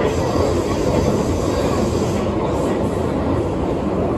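Fukuoka City Subway 3000A series linear-motor train running at a steady speed through a tunnel, heard from inside the car: a continuous, even rumble of wheels on rail and tunnel noise.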